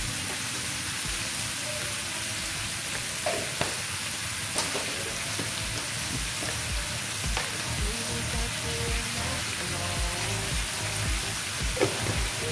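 Vegetable pieces sizzling in hot oil in a kadhai on a gas stove, a steady frying hiss as they sauté with mustard seeds, cumin, turmeric and salt. A few short clicks from the spatula sound through it.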